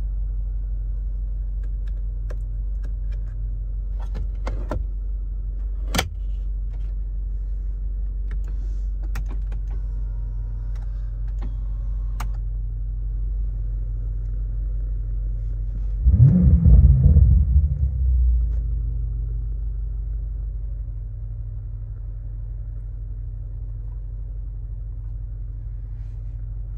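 BMW M5 Competition's 4.4-litre twin-turbo V8 idling with a steady low rumble, with a few light clicks in the first dozen seconds. About 16 seconds in the revs are blipped once, loudly, and the engine settles back to idle over a few seconds.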